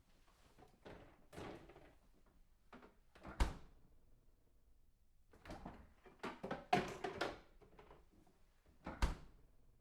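Someone rummaging in a refrigerator: items are shifted and set down in irregular bursts of knocking and rustling, with a sharp knock about three and a half seconds in and another near nine seconds.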